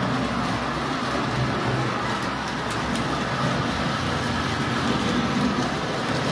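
Three-rail model trains running on the layout: a steady rumble of wheels on the track with a few faint clicks.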